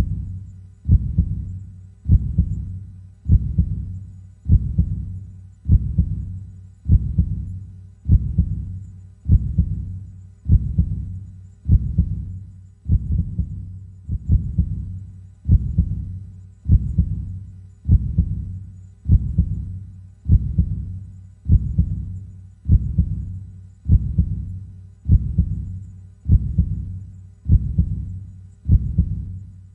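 Human heartbeat beating slowly and steadily, a low thump a little more than a second apart, about 52 beats a minute.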